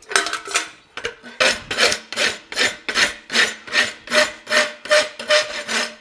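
Farrier's rasp worked in quick, even strokes across the branch of a steel bar horseshoe held in a vise, about two and a half strokes a second, after a brief pause about a second in.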